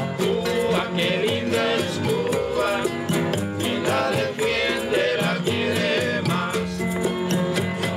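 Cuban son played on acoustic guitars, with maracas and a marímbula keeping a steady beat.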